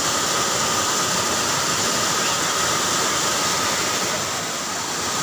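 Waterfall in spate: white water rushing steadily down a sloping rock slab.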